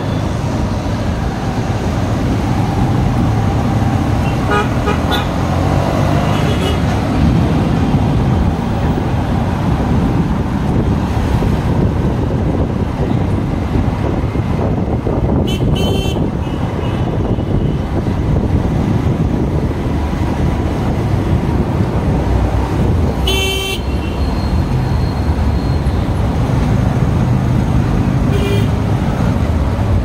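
Motorcycle riding through street traffic, its engine and road noise a steady low rumble. Vehicle horns give about five short toots, the loudest a little past the middle.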